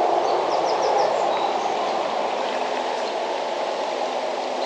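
Shallow river riffle rushing steadily over rocks. A short run of faint, high bird chirps comes in the first second or so.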